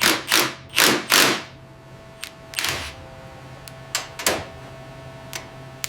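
A series of knocks and thuds, four in the first second and a half and then one every second or two, with a few sharp clicks between them, over a steady low hum.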